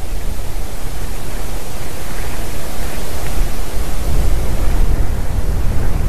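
Wind blowing across the nest camera's microphone: a steady loud hiss with a low buffeting rumble that grows somewhat stronger in the second half.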